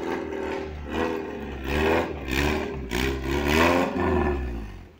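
Modified Maruti Gypsy 4x4's engine revving hard in repeated surges as it climbs a muddy off-road trail, the pitch rising and falling about six times over a low rumble, then cutting off near the end.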